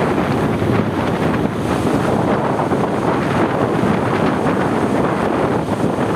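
Wind buffeting the microphone: a loud, steady rush with no horn or voice in it.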